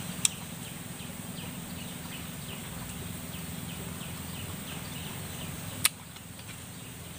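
Faint high chirping repeated about three times a second over a steady outdoor background, with a sharp click just after the start and another about six seconds in.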